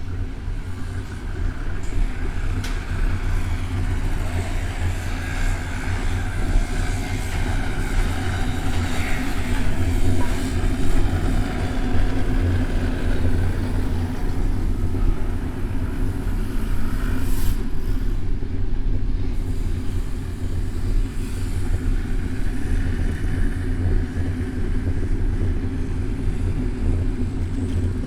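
Steady low rumble of wind and road noise on a bicycle-mounted action camera's microphone while riding, with traffic noise around it.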